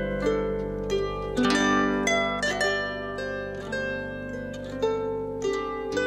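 Solo harp playing: a plucked melody over ringing bass notes, with a quick run of notes about a second and a half in.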